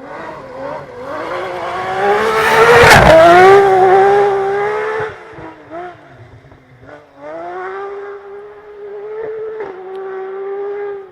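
Rally car engine at full throttle as the car approaches and passes close by, loudest about three seconds in, then fading; from about seven seconds an engine is heard again holding a steady high note.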